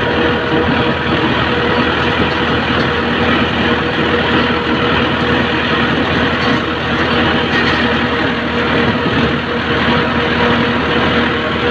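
Tractor engine running steadily while it drives a boom sprayer through a cotton field, heard close up from on the tractor: a constant drone with a steady hum and no change in speed.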